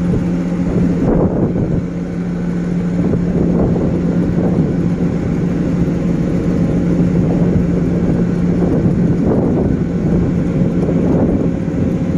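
Ship's engine droning steadily with a constant low hum, with wind rumbling on the microphone.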